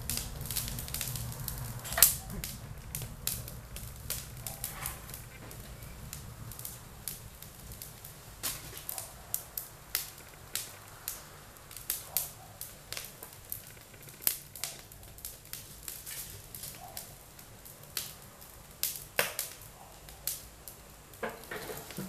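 Wood fire burning in an open wood stove, crackling with irregular sharp pops.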